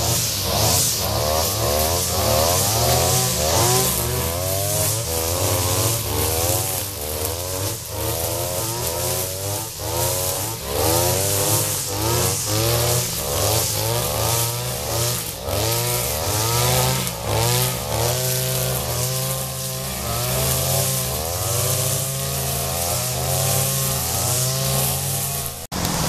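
Several two-stroke petrol brush cutters running, their engines revving up and down over and over as they cut grass.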